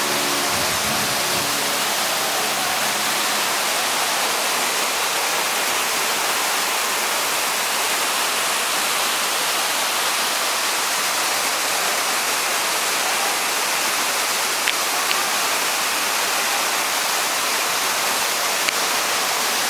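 Steady rush of water from a 35-metre man-made indoor waterfall pouring down into its pool.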